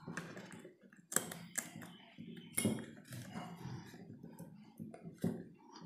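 Rubber balloon being stretched and worked over the mouth of a bottle by hand: faint, irregular rubbing and small taps.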